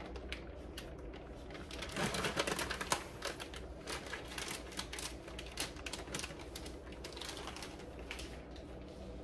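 Plastic rice bag crinkling as it is rolled closed: a rapid run of small crackles, loudest around two to three seconds in, thinning out toward the end.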